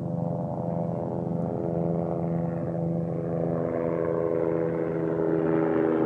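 Helicopter flying overhead: a steady drone with several tones that slowly shift in pitch, growing a little louder toward the end.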